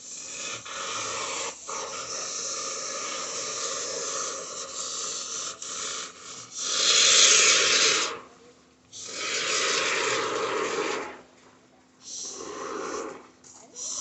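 Scratchy rustling and scraping of coarse rodent excluder mesh being stuffed by hand into the gap around a pipe penetration: a steady scratching at first, then louder rustling pushes of a second or two each, the loudest about seven seconds in.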